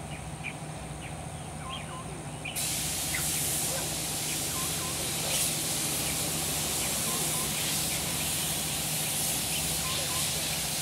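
Outdoor ambience of scattered short bird chirps over a low steady hum. About two and a half seconds in, a loud, even hiss comes in abruptly and continues.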